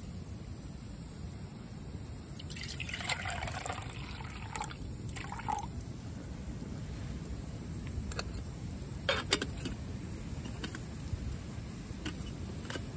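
Water poured into a metal cooking pot in two pours, starting a couple of seconds in, followed by a few clicks about eight to nine seconds in.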